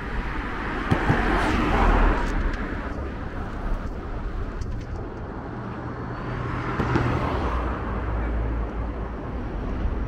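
Street traffic: two vehicles pass one after the other, each a swell of tyre and engine noise over a low rumble. The first peaks about two seconds in, the second around seven seconds.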